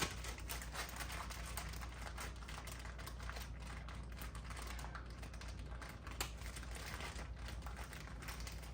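Hand ratchet with a socket clicking in quick, uneven runs of small clicks, working the last plug or coil pack into place.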